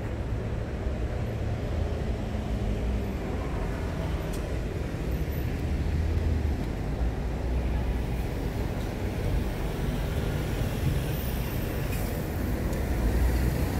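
Street traffic: cars and buses running past, a steady low rumble.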